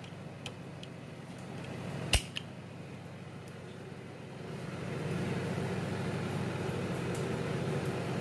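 A single sharp metal click about two seconds in as the pressure cooker's lid is closed, with a couple of fainter ticks, over a steady low hum that grows louder about halfway through.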